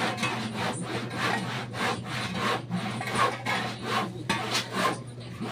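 Handsaw cutting wood with quick back-and-forth strokes, about three a second, over a steady low hum.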